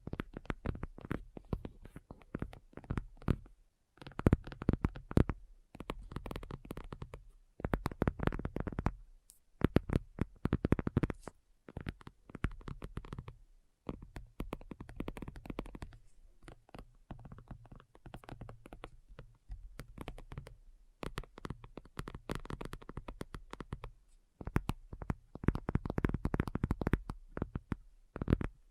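Fingernails tapping rapidly in quick flurries of a second or two, with brief pauses between.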